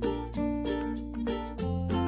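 Background music: light plucked ukulele-style tune over a steady bass, with a new bass note about one and a half seconds in.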